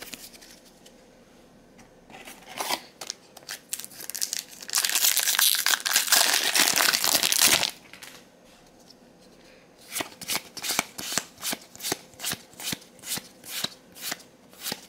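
A foil Magic: The Gathering booster pack wrapper crackling loudly for about three seconds as it is torn open. Then comes a steady run of sharp card snaps, about three a second, as the cards are flicked through one at a time.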